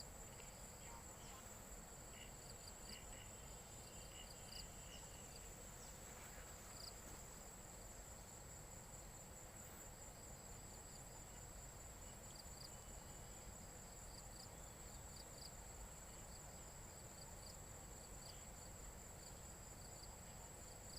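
Insects calling: one steady, very high trill that runs on without a break, with short faint chirps scattered over it.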